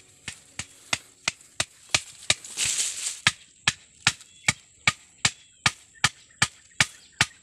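Machete chopping into a wooden stick in steady, even strokes, nearly three a second, with a brief rustle about three seconds in.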